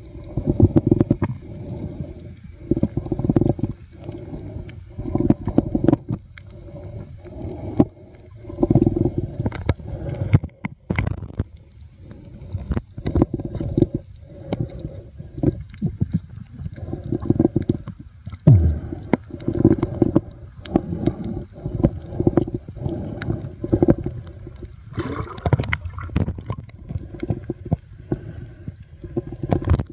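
Muffled underwater sloshing and rumbling picked up by a compact camera sealed in a soft waterproof pouch, coming in uneven low pulses about once a second as water moves around the pouch.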